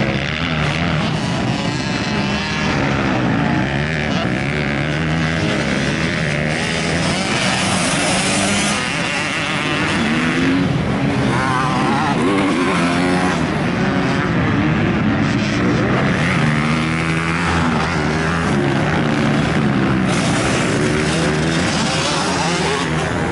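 Several motocross dirt bikes running on a dirt track, their engines revving up and dropping off over and over as the riders accelerate out of turns and over jumps, several bikes overlapping at once.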